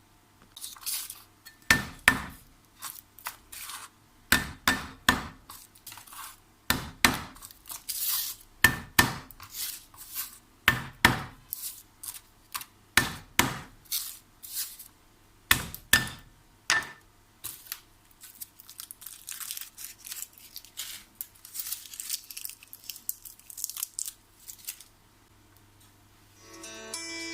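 Kitchen food-preparation noises: a long run of irregular sharp knocks and clinks, the loudest coming about once a second, stopping a couple of seconds before the end. A steady low hum runs underneath.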